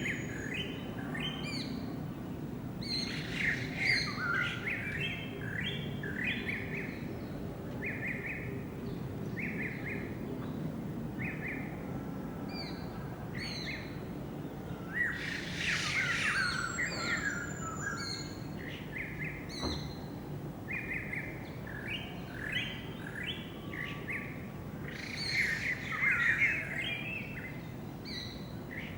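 A flock of birds chirping and calling together in an evening chorus, many short overlapping chirps that swell into busier bursts a few times, over a low steady background rumble.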